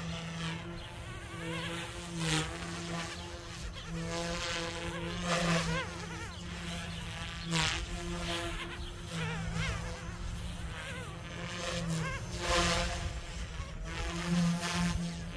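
Small electric Goosky S2 RC helicopter in flight: a buzzing whine from its motors and rotors that shifts up and down in pitch as it manoeuvres, swelling in loudness several times as it comes closer.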